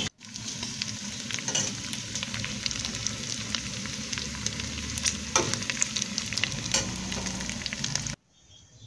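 Chunks of pork sizzling as they brown in oil in a pot, after the cooking water has boiled off: a steady frying hiss with frequent sharp crackles and pops. It cuts off suddenly about a second before the end.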